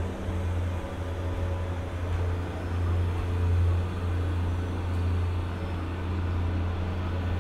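Electric freight locomotives running through the station, heard as a steady low hum.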